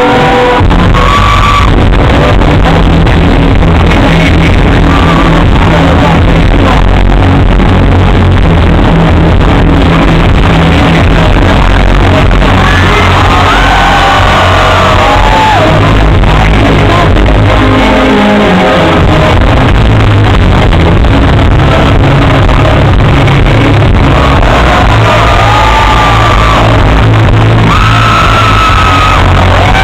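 Loud music playing over a shouting crowd, with voices rising and falling in calls or singing about halfway through and again near the end.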